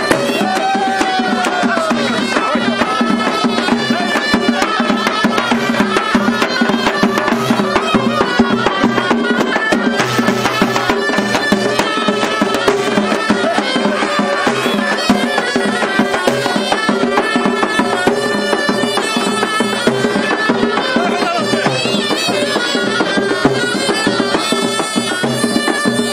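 Traditional Kabyle idebbalen band playing: a double-reed ghaita (shawm) plays a melody over steady drone-like tones, with fast continuous beats on a tbel, a double-headed drum struck with a stick.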